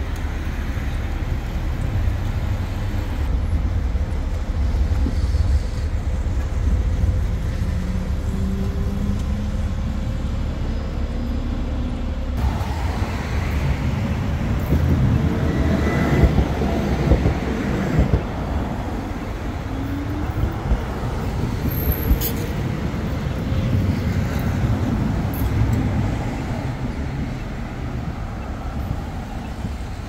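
City road traffic: a steady rumble of cars and buses passing, with engine pitch rising as vehicles pull away a few times.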